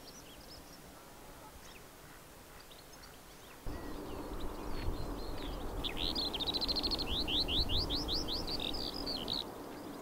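A small songbird sings one phrase of quickly repeated high, sweeping notes lasting about three and a half seconds, very fast at first and then slowing, with a few scattered soft chirps before it.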